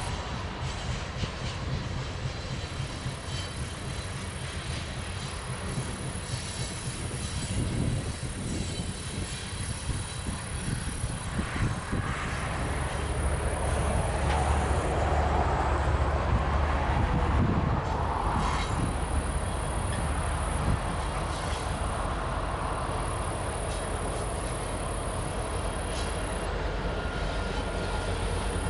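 Loaded coal hopper cars of a long freight train rolling past: a steady rumble of steel wheels on rail, growing somewhat louder about halfway through.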